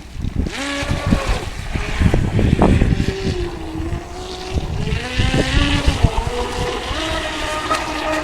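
Brushless electric motor (2075kv, on 4S) of an RC boat whining as it runs on the water, its pitch rising and falling several times with the throttle, over low buffeting noise.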